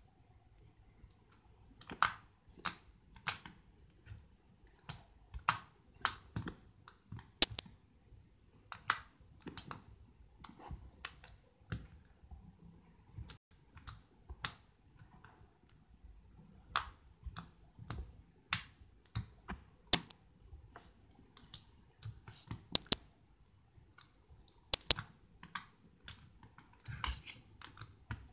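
Red slime being pressed, poked and squeezed by hand, giving irregular sharp clicks and pops, a few each second.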